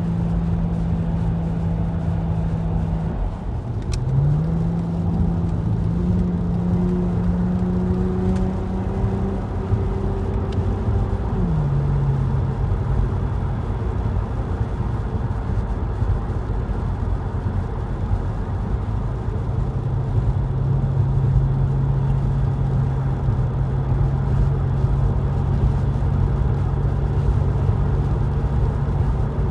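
Car driving at highway speed: a steady low rumble of engine and tyre noise with an engine drone whose pitch rises about four seconds in and falls back near twelve seconds.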